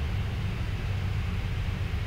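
Steady low rumble and rushing air noise on the flight deck of a Boeing 777-200F freighter climbing out after takeoff, with engine sound and airflow around the cockpit blended into one even drone.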